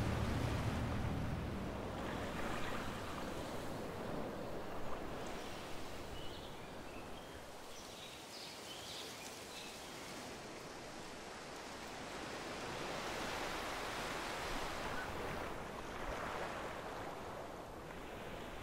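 Ocean surf washing on a shore, a steady wash that swells and fades slowly, with a few faint high chirps in the middle.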